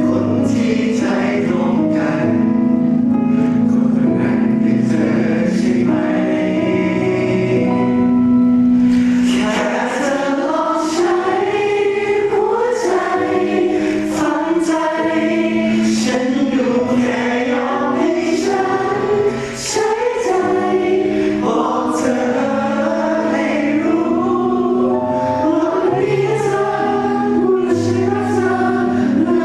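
A pop ballad performed live: singing, with many voices together, over backing music.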